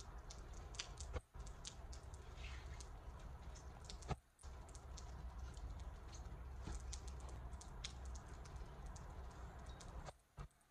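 Steady low outdoor rumble with many scattered light clicks and taps. The sound cuts out suddenly and briefly about a second in, about four seconds in, and again near the end.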